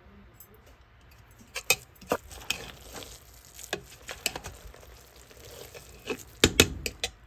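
A serving spoon stirring and scooping cooked rice in a pot: soft rustling with a series of scrapes and knocks against the pot, the loudest near the end.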